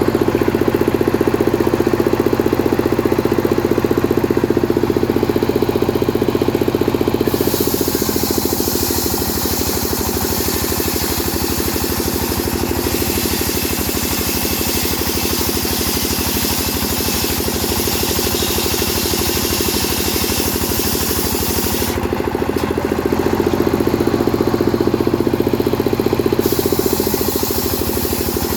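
Two-stroke chainsaw engine running continuously. From about eight seconds in until about 22 seconds, and again near the end, its note drops and a rasping hiss joins it as the chain cuts into wood. In between it runs at a steady, higher note.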